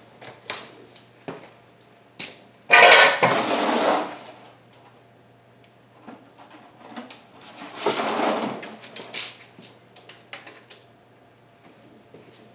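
Metal sockets and hand tools clinking and rattling as a toolbox is rummaged through, with two louder bursts of clatter, about three and eight seconds in.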